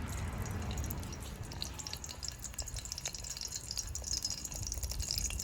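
Garlic and pepper sizzling and crackling in hot oil in a pot, the crackle thickening toward the end, over a low rumble.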